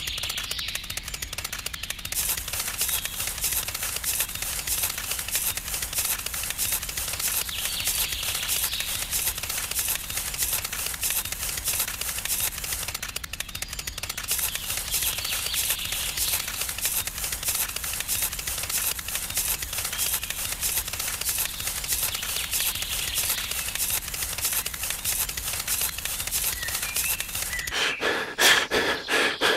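Rapid, even clicking that runs steadily, thins out briefly about halfway through and stops shortly before the end.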